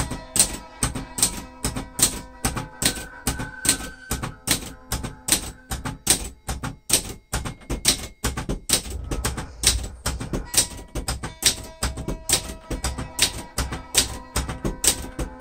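Cursive Adler J5 manual typewriter typing out its symbol characters: a steady run of sharp key and typebar strikes against the platen, about three to four a second.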